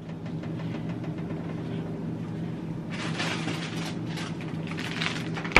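A steady low hum, joined from about three seconds in by the crinkly rustle of plastic food packaging being handled.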